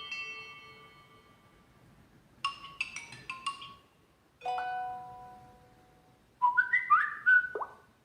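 Samsung Galaxy Note 4 notification tones played one after another: a chime ringing out, a quick run of bright notes about two and a half seconds in, another chime about four and a half seconds in, and a rising flurry of notes that ends in a quick downward slide near the end.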